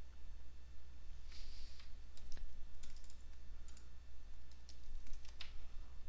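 Computer keyboard keystrokes: a short run of irregular, sharp taps as a password is typed in, over a steady low hum.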